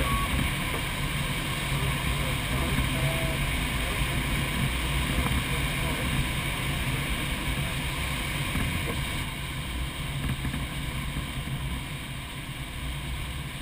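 Steady rushing airflow over a Single Astir glider's canopy in flight, with a low rumble underneath, easing off a little in the last few seconds.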